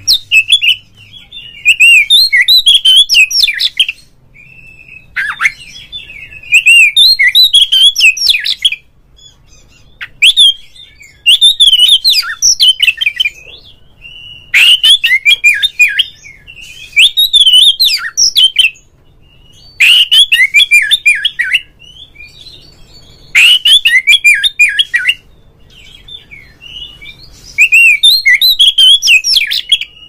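Oriental magpie-robin singing a loud, varied song of rapid whistled and scratchy notes. It comes in about eight phrases of a second and a half to two seconds each, one every three to four seconds, with softer chirps between. It is the full, provoked song of a kacer, of the kind used as a lure to rouse other magpie-robins to sing.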